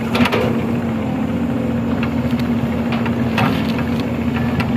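Excavator diesel engine running steadily, with a few short knocks.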